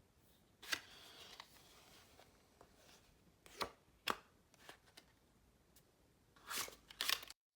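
A deck of Bicycle playing cards handled in cardistry moves: a few sharp snaps of the cards with short rustles between them, the loudest pair near the end, then the sound cuts off suddenly.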